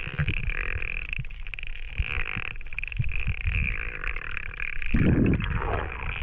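Underwater sound picked up by a camera in a waterproof housing: muffled rumbling and gurgling of water moving around the housing, with faint sharp ticks and a louder surge about five seconds in.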